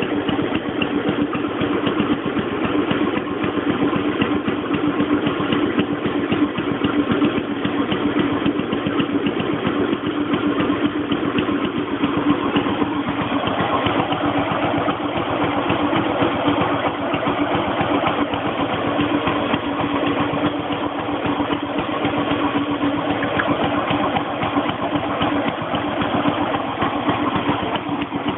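Scott stationary engine running steadily while belt-driving a dynamo, which puts load on the engine. The sound is an even, rapid beat with a constant tone.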